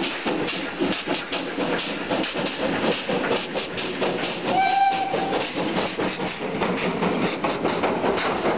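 Polish Pt47 steam locomotive working a passenger train past, its exhaust beating rapidly and evenly. About halfway through comes one short steam whistle blast, and near the end the engine draws level and the wheels of the coaches begin to clatter.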